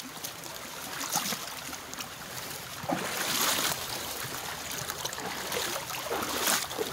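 Shallow river flowing steadily over stones and cobbles, with a few sloshes from someone wading through it in waders.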